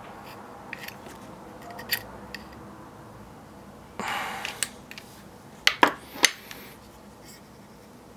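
Pliers pressing a ground-down aluminium tack-nail hinge pin into a tight 3D-printed plastic hinge: small scattered clicks, a short scrape about four seconds in, then three sharp clicks in quick succession about six seconds in as the pin seats.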